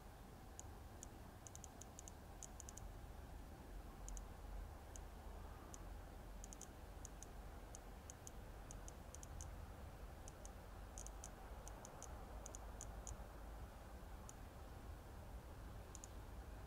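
Faint, irregular high-pitched clicks, often in quick clusters of several, over a low steady rumble.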